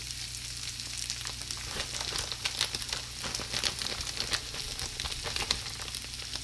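Hash brown and sausage skillet sizzling on an electric skillet, with irregular small crackles over a steady hiss.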